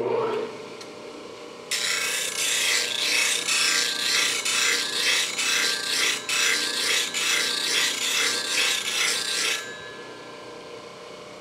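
Bench grinder running with a steady motor hum. From about two seconds in, a steel part from a Stanley Bedrock 604-1/2 hand plane is held against the wheel, giving a loud hissing grind in uneven pulses; the grinding stops near the end while the wheel keeps spinning.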